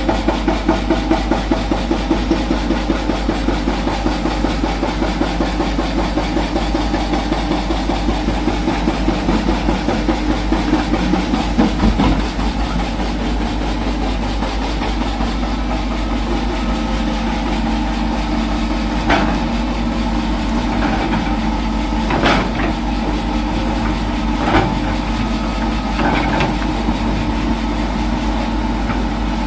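Hitachi Zaxis 210F excavator's diesel engine running as it works, with a fast pulsing beat for the first dozen seconds, then steadier. In the second half the steel bucket knocks sharply against broken rock four times as it digs into the pile.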